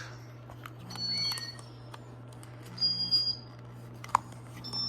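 A Casablanca Spirit of Saturn ceiling fan's motor humming steadily, still running after its control is let go, a sign of its faulty control. Three short, high electronic beeps sound over it, about a second in, about three seconds in and near the end, with a single click a little after four seconds.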